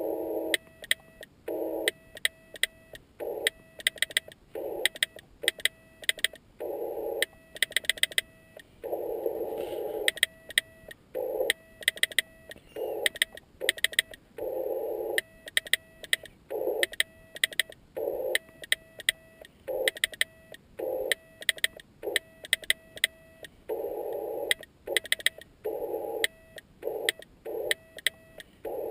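Slow hand-sent Morse code: a steady tone near 650 Hz keyed on and off in dots and dashes from a Yaesu FT-817ND transceiver. Sharp clicks of the homemade key mark the start and end of each element.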